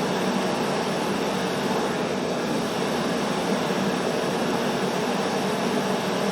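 Homemade gas forge with twin small burners running: a steady, even rush of gas burning in the chamber.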